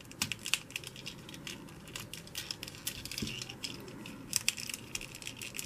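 Hard plastic parts of a Transformers Bumblebee action figure clicking and creaking as they are squeezed and pushed together by hand, the rear piece being pressed onto its pegs to close up the Volkswagen Beetle car mode. A scatter of small sharp clicks, the loudest about half a second in and again a little past four seconds.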